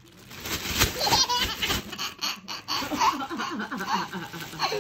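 Baby laughing while a plastic bag is crinkled and rustled in front of them.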